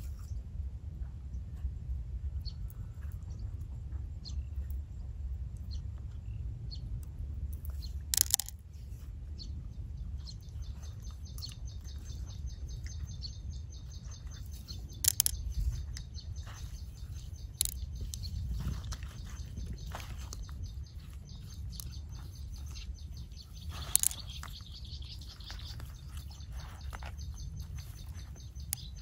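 Outdoor ambience: a steady low wind rumble on the microphone, with high repeated bird chirping coming in about a third of the way through and running on. Four sharp clicks stand out, the loudest sounds, spread out singly.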